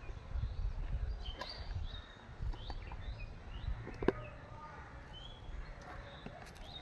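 Small birds chirping and calling now and then in short rising and falling notes, over a steady low rumbling noise, with a single sharp click about four seconds in.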